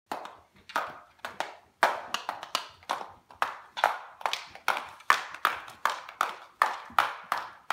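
Toddler's plastic dress-up princess high heels clacking on a hard wood floor, a steady run of sharp footstep clicks about two to three a second.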